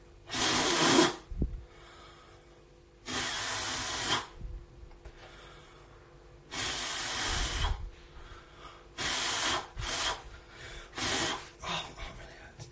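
A man breathing out hard close to a phone microphone: six loud, breathy exhales, the first three about a second long and a few seconds apart, then shorter ones near the end.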